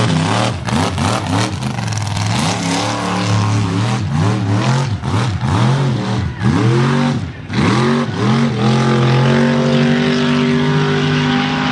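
Mega mud truck's engine revving hard and unevenly through the mud pit, its pitch swinging up and down over and over, with sharp cracks among the revs in the first couple of seconds. For the last few seconds it is held at steady high revs.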